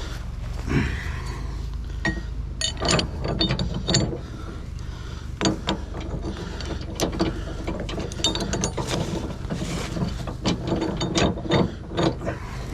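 Irregular metallic clicks and clanks of winch recovery rigging being handled and set up, over a steady low hum.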